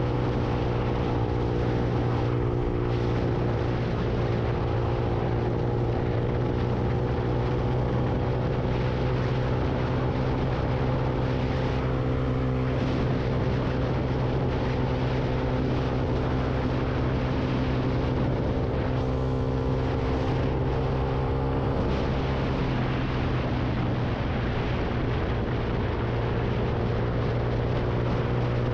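Lexmoto Viper 125 motorcycle engine running at a steady cruise, mixed with wind and road noise. The engine note holds steady and wavers briefly a couple of times midway.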